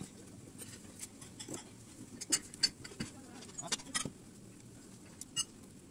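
Plastic-gloved hands pressing sushi rice onto a sheet of nori: faint crackling and clicking, with a cluster of sharper clicks in the middle.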